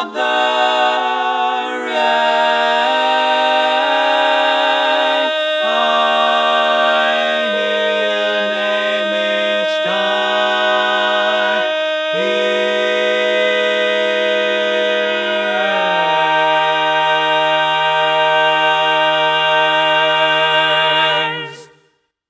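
Four-part a cappella barbershop harmony, one male singer multi-tracked on all four parts: sustained chords with vibrato, the bass stepping down in pitch, ending on a long held chord that stops just before the end.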